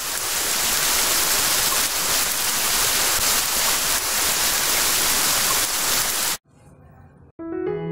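A loud, even hiss of static-like white noise that holds steady for about six seconds and then cuts off abruptly. After a brief faint lull, piano music starts right at the end.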